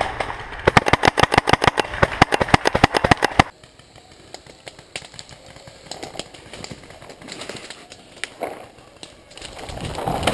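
Paintball marker firing a rapid string of shots, about nine a second, that stops abruptly about three and a half seconds in. After that there is only faint rustling and a few scattered knocks as the player moves through brush.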